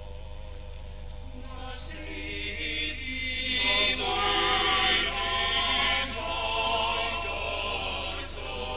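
Background music of a choir chanting, with held notes that swell louder a couple of seconds in.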